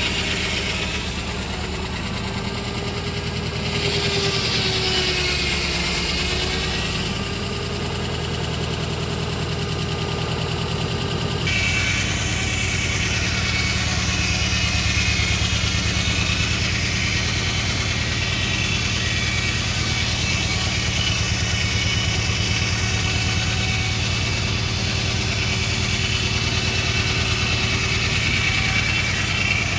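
Engine powering a vintage belt-driven Frick sawmill, running steadily with a high whine above it; the sound changes abruptly about eleven seconds in.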